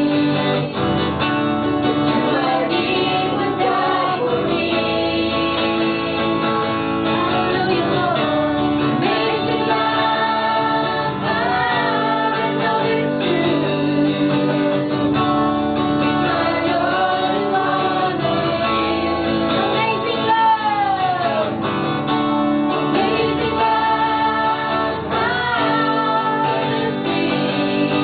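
Live praise and worship song: women singing into microphones with guitar accompaniment, the sung melody gliding and wavering over steady held chords.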